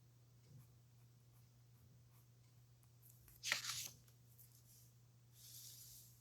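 A sheet of paper handled with a sharp crackle for about half a second, about three and a half seconds in, then a softer brushing swish near the end. A low steady electrical hum runs underneath.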